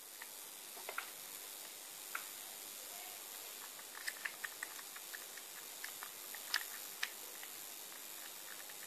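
Kitten suckling at a nursing bottle's teat: scattered small clicks and smacks, a quick run of them about four seconds in, over a steady hiss.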